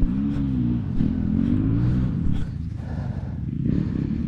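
Enduro motorcycle engine revving, its pitch rising and falling about twice in the first two seconds and then running lower and steadier.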